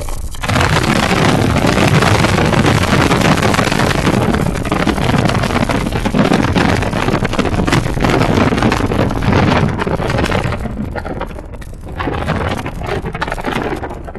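Mazda RX-8 on the move: rotary engine and road noise, with wind rushing over the microphone. The noise eases briefly about ten seconds in, then picks up again.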